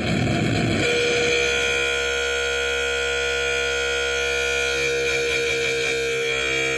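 Noise Demon noise synthesizer output: harsh noise that about a second in switches to a steady buzzing drone of several fixed pitches, which cuts back to noise at the end.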